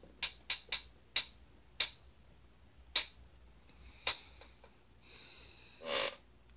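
A series of sharp clicks at uneven intervals. About five seconds in comes a high, steady electronic tone that lasts less than a second and ends in a short, louder burst of noise.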